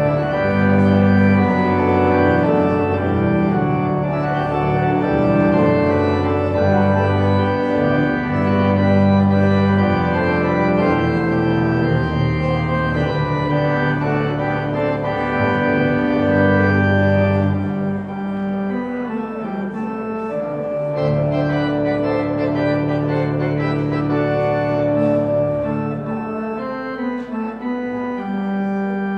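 Church organ playing the postlude: sustained chords over deep held bass notes, the harmony changing every few seconds, the bass dropping out briefly twice in the second half.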